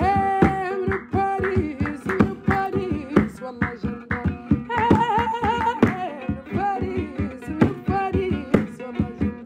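Mauritanian song: a woman singing ornamented, wavering held notes over plucked strings and a quick, steady beat.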